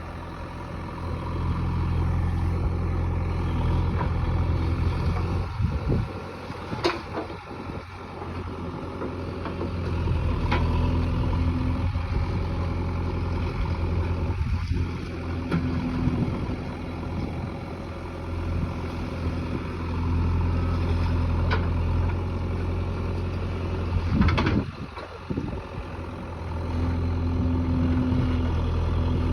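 Diesel engine of an older JCB 3DX backhoe loader running under working load while digging, its steady drone rising and falling as the hydraulics work, with a few sharp knocks along the way.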